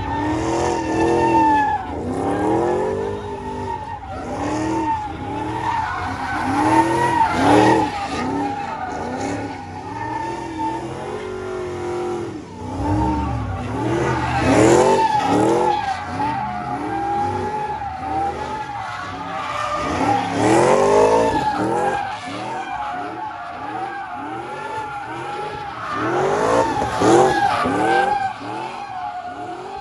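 A car's tyres squealing steadily while its engine revs up hard over and over, as in a burnout or donuts.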